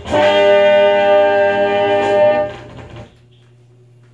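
Frevo recording by a carnival orchestra, played from a vinyl LP, ending on one loud held chord. The chord dies away about two and a half seconds in, leaving a low steady hum.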